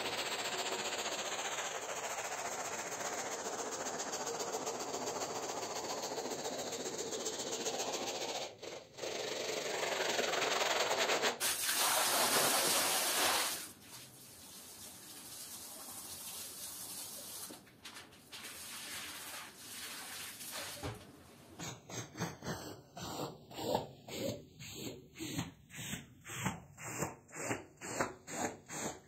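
A hand brush scrubbing a soapy, foamy rug, then a loud stretch of water spray hissing onto it near the middle. Toward the end come quick, even strokes of a long-handled tool working the wet rug, about two a second.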